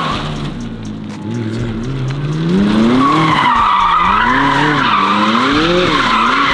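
A car doing donuts: the engine revs rise and fall repeatedly under throttle, and the tyres squeal steadily from about halfway in.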